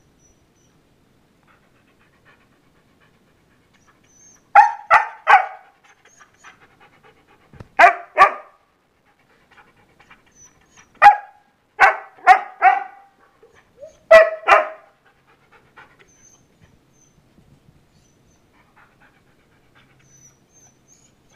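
Siberian husky barking in four short bursts of two to four barks each, a few seconds apart: impatient barks from a dog harnessed and leashed, waiting to go out.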